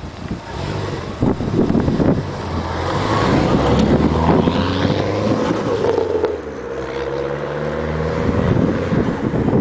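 Dodge Neon SRT-4's turbocharged 2.4-litre four-cylinder running under load. Its pitch climbs steadily in the second half, as the engine gains revs.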